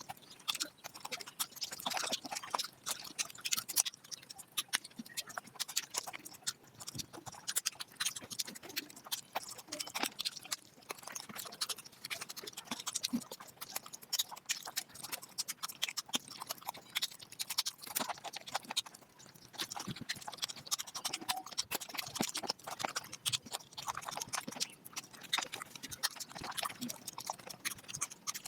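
Eating sounds played at five times speed: chewing and lip-smacking run together into a dense, unbroken patter of quick wet clicks.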